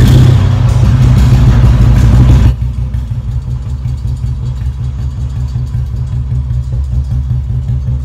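Royal Enfield Bullet Standard 350 BS4 single-cylinder engine running through a free-flow bend pipe and short bottle silencer. It is loud and full for about the first two and a half seconds, then drops abruptly to a steady, evenly thumping idle.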